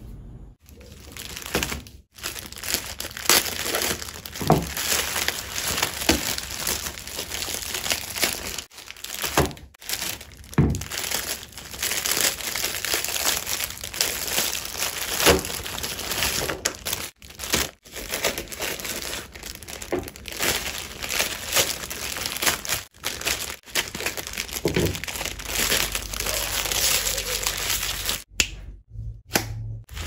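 Plastic snack wrappers crinkling as packs of biscuits and wafers are handled and stacked, with a few sharper knocks as packs are set down. The crinkling breaks off briefly several times.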